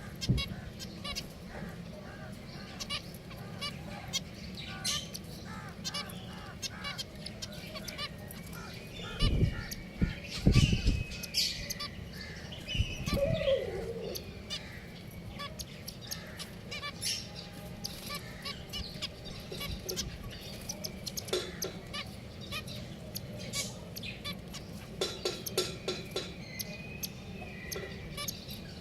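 Pet finches chirping and giving short nasal calls, over many light clicks and taps. A few dull thumps come about nine to eleven seconds in.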